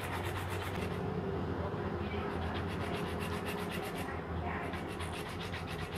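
Soft fruit being grated by hand on a flat stainless-steel rasp grater: quick scraping strokes in bursts, pausing briefly twice, over a low steady hum.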